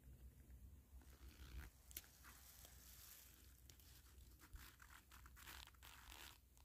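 Faint kayak paddling: the paddle dipping and water trickling and dripping off the blade in short, uneven bursts, starting about a second in.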